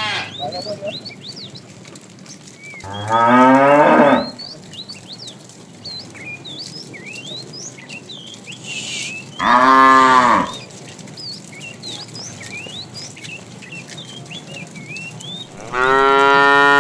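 Cattle mooing: three loud, drawn-out moos about six seconds apart, the first rising in pitch.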